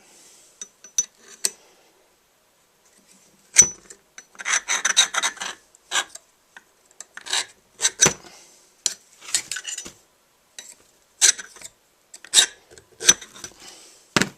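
Chainsaw bar's guide groove and oil holes being scraped clean with the tip of a metal scrench, in irregular bursts of scraping with sharp metal clicks, then one hard click near the end.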